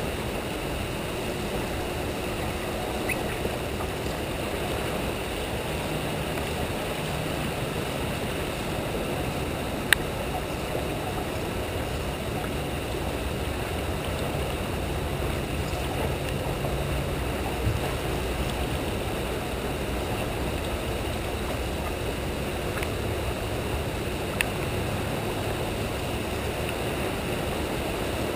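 Steady rushing and churning of turbulent water in a hydroelectric dam's tailwater, with a few brief sharp ticks over it.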